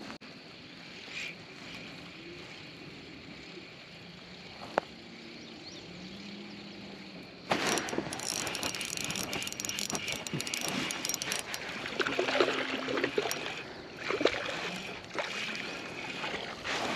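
Spinning reel cranked steadily, a dense rapid clicking and rattling that starts suddenly about halfway through, as a hooked crappie is reeled in toward the kayak.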